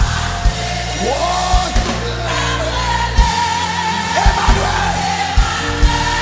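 Live gospel worship music: a singer and choir holding long, sliding sung notes over a steady drum beat.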